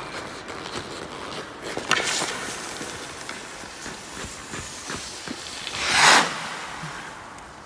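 Hockey skate blades scraping and carving on rink ice, with a sharp click about two seconds in. A loud hissing scrape swells and fades about six seconds in.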